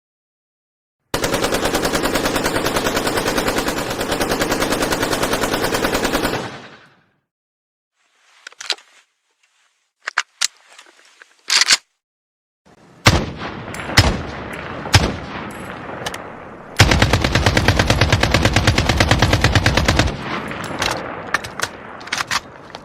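AK-47 assault rifle firing on full automatic: a long burst of about five seconds, then scattered single shots and short bursts, a second long burst of about three seconds, and more scattered shots near the end.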